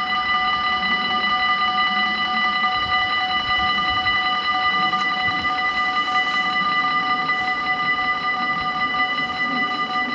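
Dutch automatic level-crossing warning bells ringing steadily at several pitches at once, the signal that a train is approaching and the barriers are closing.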